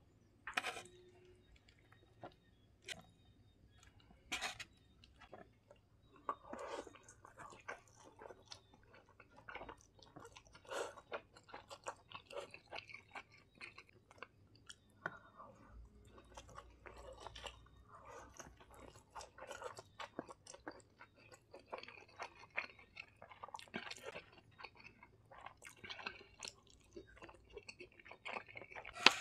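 A person chewing a mouthful of Samyang spicy instant noodles, close up and quiet, with many small, irregular wet mouth clicks and smacks.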